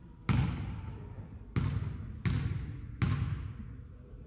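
Basketball bounced four times on a hardwood gym floor, a player's dribbles at the free-throw line before the shot, each bounce echoing in the large hall.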